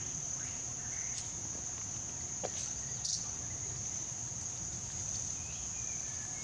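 Steady high-pitched insect drone, unbroken throughout, with a few faint short chirps and a couple of light clicks.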